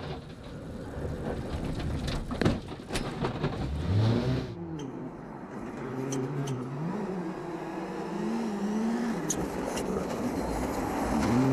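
World Rally Car's turbocharged four-cylinder engine revving up and down repeatedly through gear changes, with a few sharp knocks, the loudest about two and a half seconds in.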